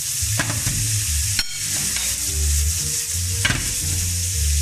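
Diced bacon sizzling in olive oil in a frying pan as it browns, stirred with a metal spoon that knocks against the pan a few times.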